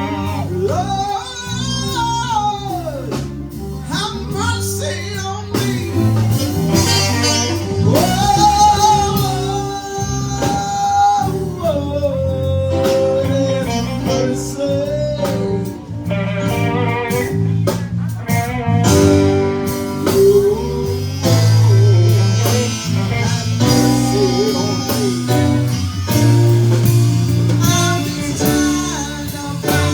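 Live blues band playing a slow blues: bass and guitar chords under a lead line of long, bent and held notes.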